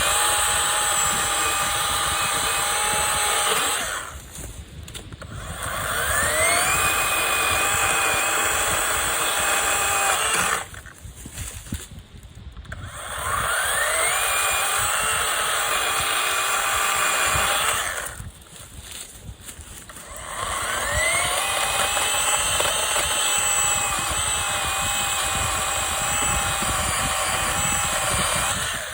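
Greenworks 40 V battery-electric chainsaw with a 16-inch bar, running in four long bursts. Each burst after the first starts with a rising whine as the motor spins up, then holds a steady whirr of motor and chain, with short pauses in between.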